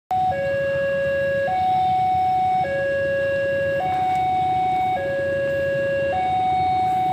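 Electronic two-tone siren alternating between a higher and a lower note about once a second, over a steady rumble, starting suddenly.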